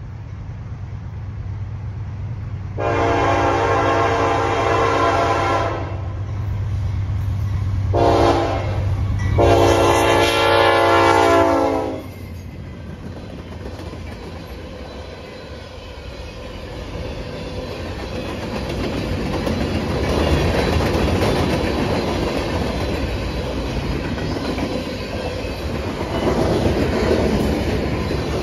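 Diesel freight locomotive sounding its horn as it approaches: a long blast, a short one, and another long one, over the low drone of its engine. Then its freight cars roll past, the noise of their wheels on the rails swelling and easing as the cars go by.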